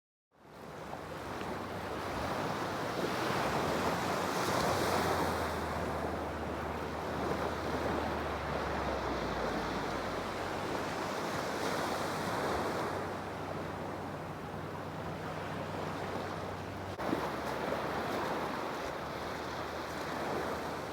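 Waves washing in at the shore, with wind rushing over the microphone; a single short knock about 17 seconds in.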